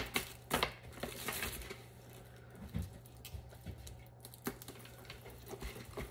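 Leather bag strap being handled and its metal clasp clipped onto the bag's D-ring: light rustling with a few small scattered clicks.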